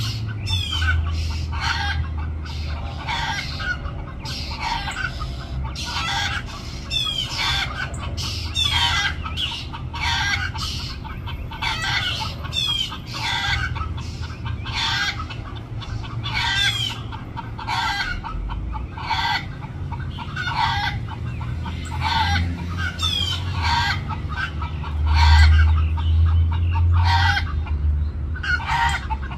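Feral chickens clucking repeatedly, a steady run of short calls about one to two a second, some with a quick falling pitch.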